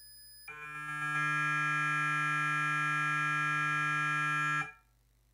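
Brushless electric skateboard motor driven by a VESC, giving out a loud, steady multi-tone electronic hum as the controller injects test current to measure its winding resistance and inductance for FOC motor detection. The tone comes in about half a second in, grows over the next second, and cuts off suddenly near the end, when the measurement is done.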